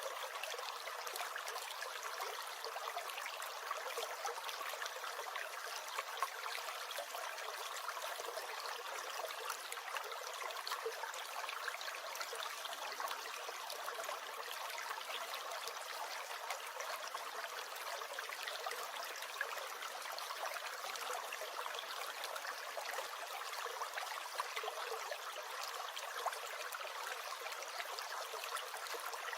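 Small stream gurgling and trickling steadily, an even rush of water flecked with tiny splashes.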